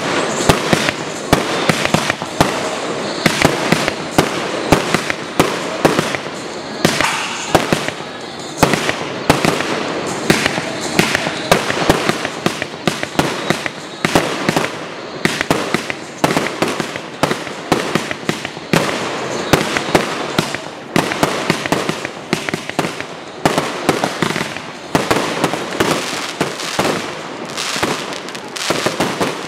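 Fireworks display firing a dense barrage: shells and cakes bursting in rapid bangs, several a second, without a break.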